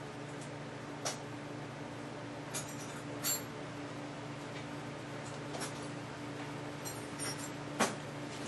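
Steady low hum with several short, light clicks and clinks scattered through it, the sharpest one near the end.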